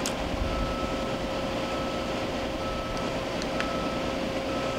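Daewoo Puma 300LC CNC turning center running, a steady hum and whir with a higher tone that cuts in and out and a few faint ticks, while its spindle is switched from low to high range.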